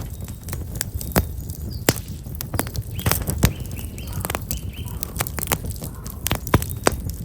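Black locust firewood burning in an open campfire, crackling with frequent sharp pops over a low steady rumble. A small bird chirps a quick run of about four notes about three seconds in.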